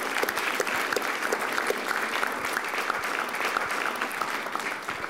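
Audience applauding steadily, the clapping beginning to die away near the end.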